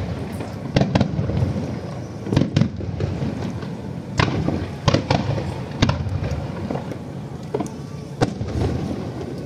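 Aerial fireworks shells bursting: about ten sharp bangs at uneven intervals, several coming in quick pairs, over a continuous low rumble.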